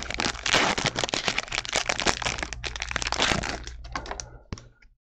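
Hands sliding and flipping through a stack of glossy baseball cards: a quick, dense run of small clicks and card-on-card scrapes that thins out over the last second and then stops.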